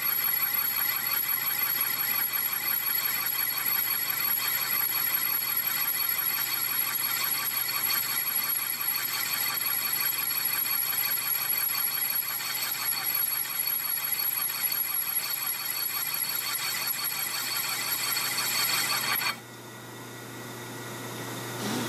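Metal lathe cutting a large steel clutch hub with a single-point tool: a steady, high, ringing metallic whine with a fast flutter. Near the end it drops suddenly to a much quieter sound.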